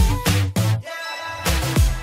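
Background electronic music with a heavy beat: deep kick drums and bass, which drop out for a moment about a second in while a held synth chord carries on.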